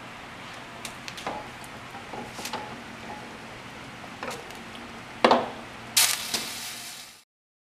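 Glass canning jars and a metal jar lifter knocking and clicking as jelly jars are lowered into a water-bath canner, with two loud clunks about five and six seconds in, over a low steady hiss.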